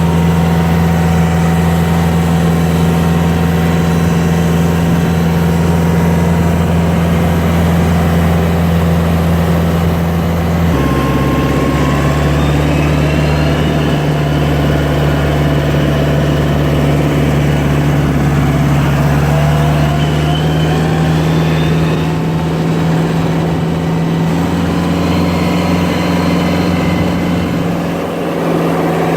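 Large engine running steadily, loud and close, its note dropping slightly about eleven seconds in, with faint rising whines over it in the middle.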